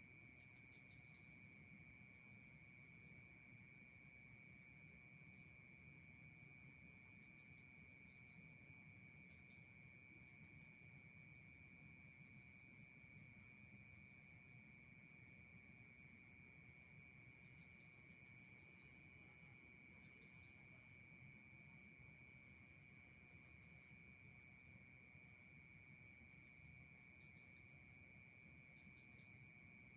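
Faint chorus of night insects: one steady high-pitched drone with a fast pulsing trill above it that comes in about two seconds in and keeps going.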